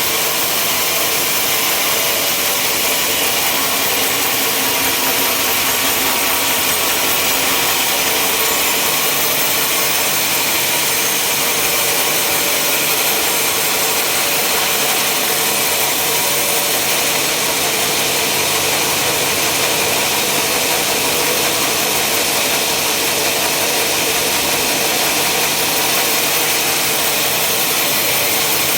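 Sawmill machinery running steadily: a constant, dense whir of the saw with a low steady hum underneath, unchanged throughout.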